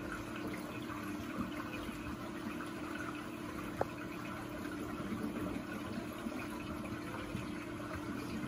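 Saltwater reef aquarium running: a steady rush of water spilling into the overflow, with a low, even pump hum beneath it. A single brief click about four seconds in.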